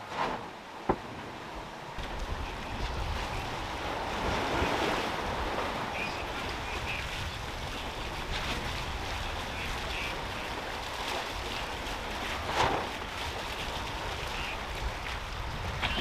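Wind buffeting the microphone over the steady rush of sea water along the hulls of a sailing catamaran under way, with the wash swelling louder a few seconds in.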